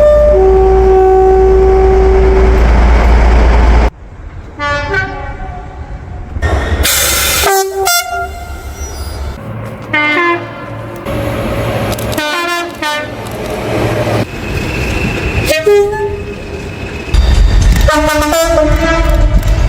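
British train horns sounding in a quick run of short cuts from different trains, several giving two notes, high then low. The loud rumble of a train passing close is heard at the start and again near the end.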